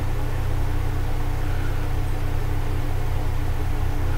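Steady low hum with a hiss over it, unchanging throughout: constant background noise of the recording, with no distinct event.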